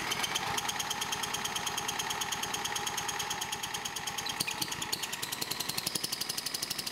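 Single-cylinder lawn mower engine spun over by a drill on its flywheel nut: a fast, even chugging of the turning engine under the steady whine of the drill motor, without the engine catching. Its cylinder head is held on only by zip ties and two head bolts, and it leaks air around the bolt holes, so it cannot start.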